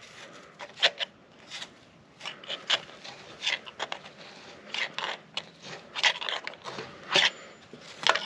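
Rope being stuffed by hand down a spark plug hole into a cylinder of a 1932 Ford Model B engine, making short, irregular scraping and rubbing sounds.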